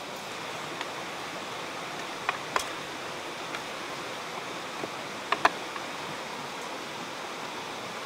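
Steady rushing outdoor background noise, broken by a few sharp clicks: two about a third of the way in and a close, louder pair about two-thirds through.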